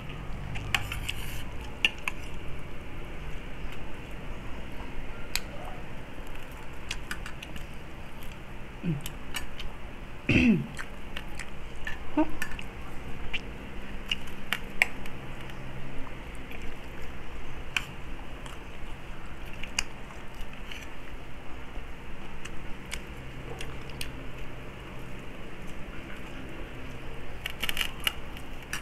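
Mukbang eating sounds: fingers tearing into a deep-fried crispy pork leg, with many small clicks and taps of a spoon and plate, and chewing. A short gliding hum comes about ten seconds in.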